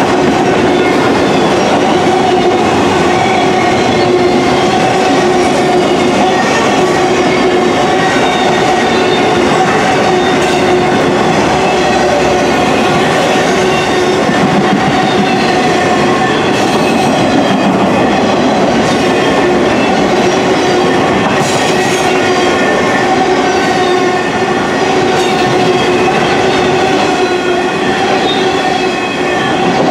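A long string of autorack freight cars rolls past close by: a loud, steady rumble and clatter of steel wheels on rail, with a steady whining tone running over it.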